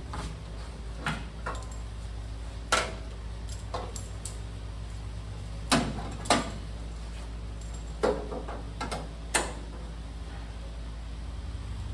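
A few sharp metallic clinks and knocks spread irregularly, the loudest two close together about halfway through, over a steady low hum: tools and metal parts being handled while a roll pan is fitted to a pickup.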